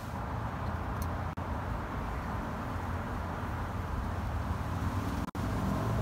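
Steady outdoor background noise with a low hum, like distant street traffic, broken twice by brief dropouts in the sound.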